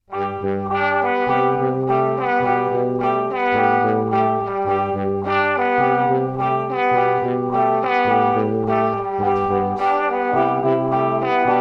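Background music that starts abruptly after silence: a quick melody of short notes over a repeating bass line.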